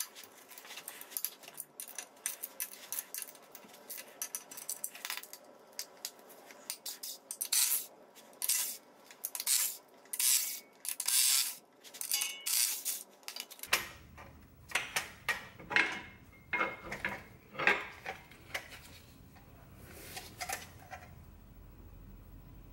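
Repeated short metallic clicks and clinks, in irregular bursts, from a hand tool on the bolts and from the steel clutch parts being handled as an old South Bend clutch pressure plate and disc are unbolted and pulled off the flywheel.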